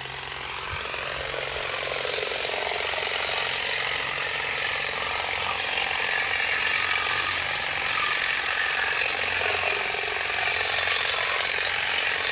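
New push-button-start lawn mower running steadily, cutting grass.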